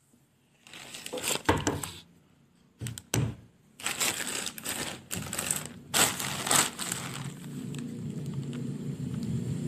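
Plastic courier mailer bag crinkling and rustling as it is handled, in several bursts with short pauses between them.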